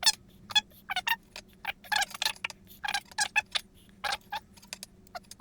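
Irregular small clicks and wet squelches, about three to five a second, as grease is worked by hand into a starter motor's planetary reduction gears and needle bearings. A faint steady hum runs underneath.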